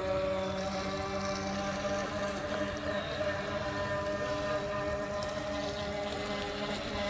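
Radio-controlled model boats running together on the water: a steady motor whine that wavers slightly in pitch as the boats turn and change speed.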